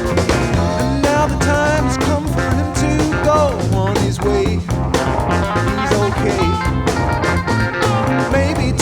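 A 1971 rock band recording playing a mostly instrumental passage. Lead guitar lines with bent, gliding notes run over a steady bass and drum groove.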